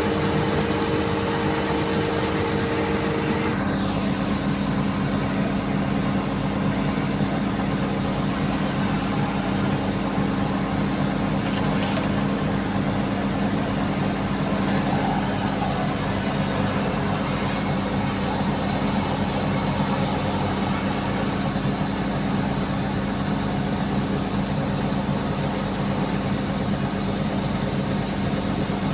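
Bulldozer's diesel engine running steadily with a deep, even note; its pitch shifts slightly about three and a half seconds in.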